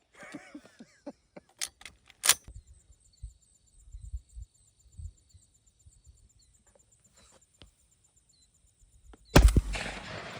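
A few sharp clicks and knocks early on, then near the end a single close shotgun shot, loud and sudden with a short ringing tail. A faint high insect-like pulsing runs underneath.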